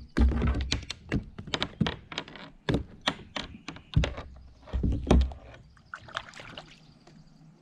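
Handling noise in a small boat: a string of clicks and knocks, with a few heavy dull thumps near the start, about four seconds in and around five seconds. A freshly caught trout is being unhooked from a spoon lure with pliers.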